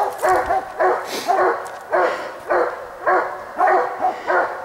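Coonhound barking in a steady rhythm, about two barks a second, each bark rising and falling in pitch.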